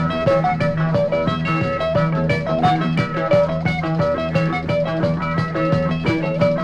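Instrumental passage of a song: a band playing a melody over a steady beat, without vocals.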